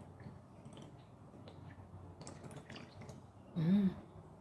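Coconut water being sipped and swallowed from a bottle, with faint wet mouth clicks, then a short, louder hummed 'mm' about three and a half seconds in.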